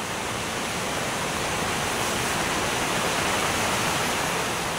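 Steady heavy rain falling, heard from inside a tent as an even hiss of water.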